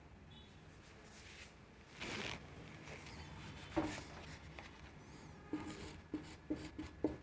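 Marker pen writing on a whiteboard: faint scrapes and short squeaky strokes, coming in a quick run in the second half.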